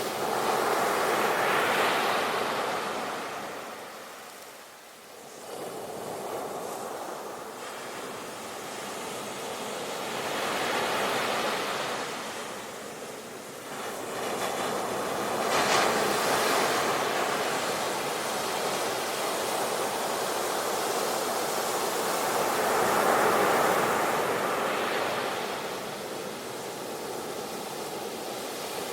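Ocean waves breaking and washing on the shore, several surges swelling and receding over the stretch, with some wind.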